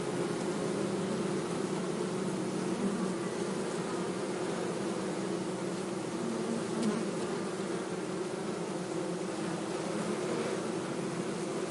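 Honeybees buzzing in a steady, continuous hum, many wings at once as around a hive.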